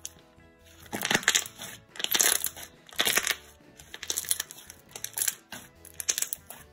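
Thick, glossy slime squeezed and folded by hand, giving bursts of crackly bubble pops about once a second.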